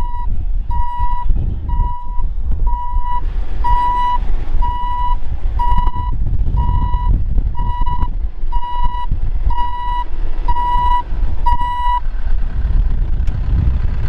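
Wheel loader's reversing alarm beeping about once a second as it backs up, stopping near the end, over a steady low rumble.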